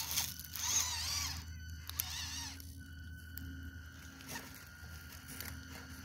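Micro RC rock crawler's small brushed motor (Injora 66T) and drivetrain whining in two short wavering bursts as the throttle is worked, then a faint steady hum while it creeps forward.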